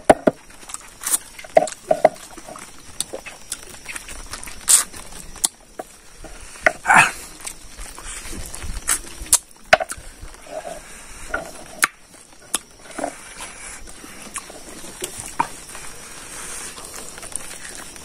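Close-up eating sounds: chewing and lip-smacking on braised pork leg and rice, with irregular sharp wet clicks and smacks.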